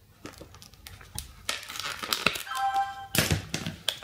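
Thin plastic layers of an electroluminescent panel crinkling and crackling as they are handled and peel apart, loudest through the middle. A brief high squeak comes a little past halfway.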